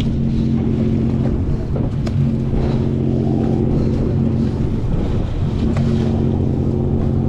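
Long-range sportfishing boat's engines running with a steady low drone.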